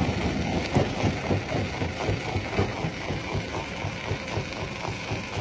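Stone crusher plant running: the jaw crusher and its drive engine make a steady chugging with a rapid, even pulse.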